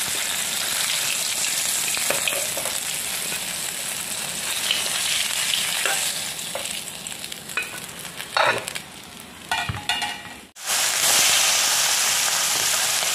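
Pieces of katla fish sizzling as they fry in hot mustard oil in a wok. Partway through, the sizzle thins out and a steel spoon clinks a few times as pieces are lifted out. About ten and a half seconds in, the sound cuts off briefly and a louder, steady sizzle of fish frying starts again.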